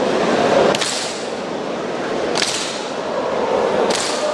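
Drill rifles snapped through a silent drill routine: three sharp swishing strokes about a second and a half apart, as the squad moves its rifles in unison.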